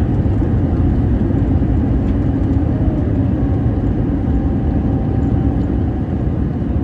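Airbus A321neo cabin noise on the runway just after landing: a loud, steady rumble of the engines and rolling airliner, easing off slightly near the end as it slows.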